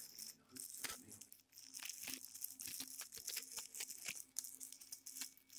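Plastic wrapping crinkling and tearing as it is opened, with many small irregular clicks and taps from handling.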